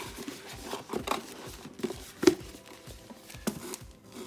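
Handling noise from a cardboard headphone box being moved about on a table: scattered taps and rustles, with one sharper knock a little after two seconds in.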